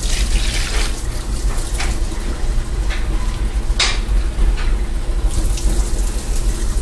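Water poured from a glass measuring cup into a roasting pan, splashing around the turkey in the pan, over a steady low hum. A few light knocks come through, the sharpest about four seconds in.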